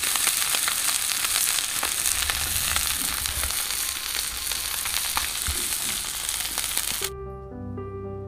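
Small turmeric-coated fish frying in oil on a flat iron pan: a dense sizzle full of small crackles. About seven seconds in it cuts off suddenly and instrumental music takes over.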